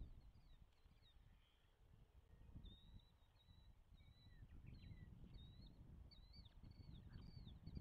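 Faint series of short, high chirping whistles from an osprey, a few notes a second, pausing in the middle and picking up again about five seconds in, over a low rumble.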